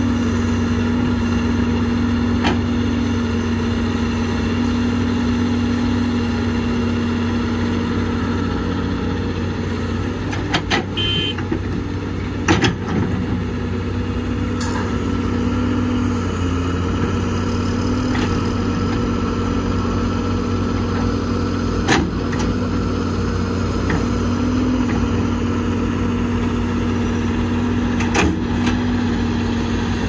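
Heavy construction machine's diesel engine running steadily, with a few sharp clanks and knocks over it and a brief squeak about eleven seconds in.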